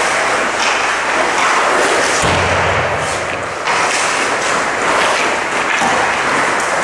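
Ice hockey skates scraping and carving on rink ice, with stick and puck clatter, and a dull thump a little over two seconds in.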